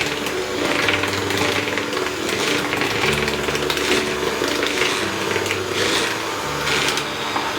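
Electric mixer running steadily while beating cake batter, with background music underneath.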